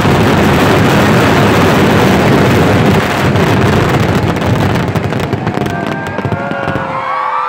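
Temple-festival fireworks barrage: countless shells and crackers going off at once in a dense, continuous volley of explosions. The volley thins to separate cracks after about five seconds.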